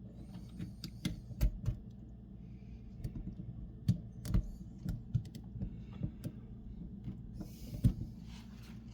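Irregular light clicks and taps of small faucet parts being handled, the plastic ring and O-rings knocking against the spout, with brief rustling. A steady low hum runs underneath.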